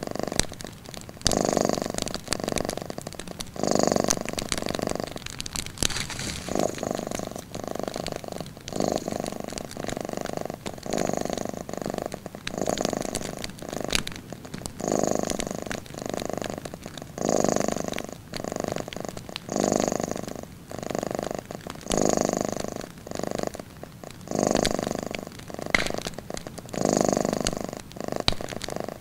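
Cat purring in a slow, even rhythm, each swell of the purr lasting about a second and a half with a short gap between, over the scattered crackle and pops of a wood fire.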